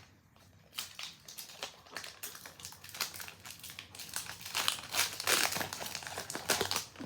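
Pokémon booster pack's plastic foil wrapper crinkling as it is handled and torn open, a run of quick crackles that grows louder after about four seconds.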